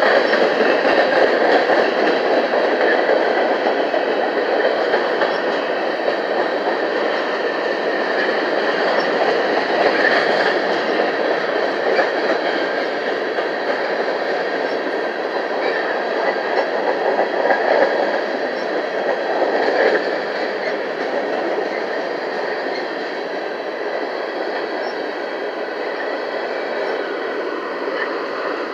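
Loaded BNSF grain train of covered hopper cars rolling slowly past: a continuous noise of steel wheels on rail, with scattered faint clicks and short squeaks. It eases off a little after about twenty seconds.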